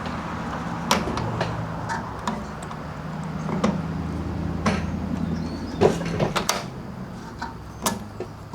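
Scattered clicks and knocks of handling, about a dozen spread through, over a steady low hum that stops a little after six seconds in.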